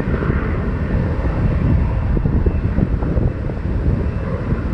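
Jet airliner engines rumbling steadily during a takeoff, mixed with wind buffeting the microphone.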